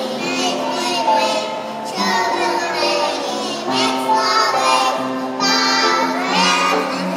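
Children singing a song with instrumental accompaniment, their voices moving over held accompanying notes.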